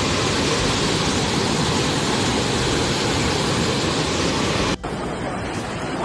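Loud, steady rushing roar of a storm: wind and heavy surf pounding a seafront. About five seconds in it cuts off abruptly and gives way to a duller rush of fast-flowing floodwater.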